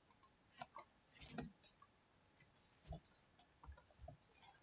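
Faint, irregular clicking of a computer keyboard and mouse, about a dozen light clicks and a few soft thumps over a few seconds, against near silence.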